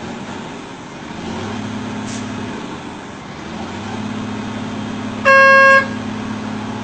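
A vehicle engine idling with a steady low hum, and a single short car horn blast of about half a second, a little after five seconds in.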